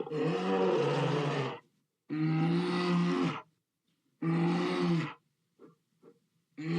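Bear growling and roaring in a series of low, rough calls, each about a second long with short pauses between, and two brief grunts near the end before another growl.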